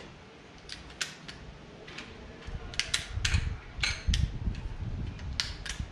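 Scattered clicks and light metal knocks as hand tools and a copper pipe are handled over an open toolbox, with low rumbling handling noise from a few seconds in.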